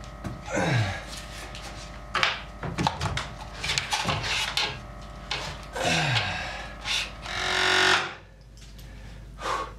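Heavy old wooden beam, salvaged from a dismantled house, being manhandled up onto a wooden loft ledge: a series of wood-on-wood knocks and thumps, then a long scrape near the end as it slides into place.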